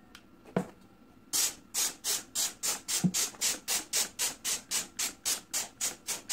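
Trigger spray bottle of Homstar MAX range hood cleaner squirted in quick succession, about four short hissing sprays a second, starting just over a second in, putting foam onto the greasy metal mesh of range hood filters. A light knock comes just before the spraying.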